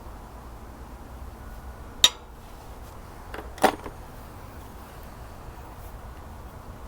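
Two sharp clinks from small metal objects being handled during engine work, about a second and a half apart. The second is the louder one and has a lighter tap just before it.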